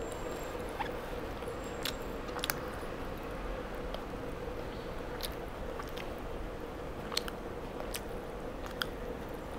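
A person chewing and biting chicken wings, with scattered small crackly clicks as the meat is pulled off the bone by hand. A faint steady hum runs underneath.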